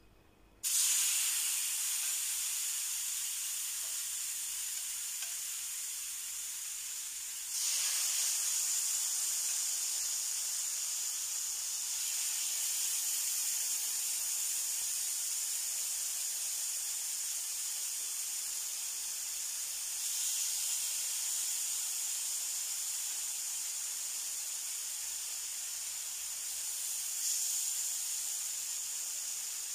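Chicken breast pieces in a yogurt and olive-oil marinade sizzling on a hot electric griddle. The hiss starts suddenly about half a second in and grows louder in steps, about seven seconds in and again near twenty and twenty-seven seconds, as more pieces are laid down.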